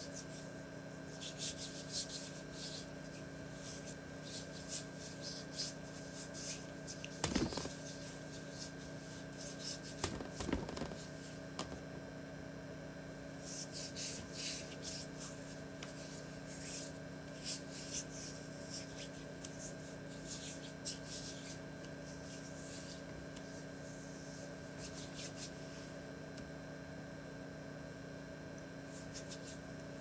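Hands rubbing over bare forearms, skin on skin, in soft irregular strokes that come and go, over a steady electrical hum. Two brief louder bumps come about a quarter and a third of the way in.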